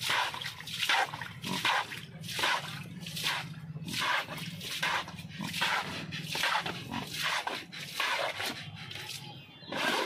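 Water being scooped and splashed again and again from a plastic scoop onto a wet concrete floor, about two splashes a second, with pigs grunting low underneath.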